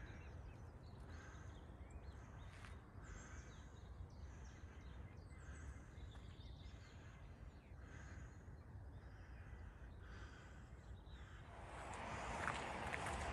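Faint bird calls repeating every second or so over a low wind rumble. Near the end a louder scuffing noise sets in, like footsteps on a dirt path.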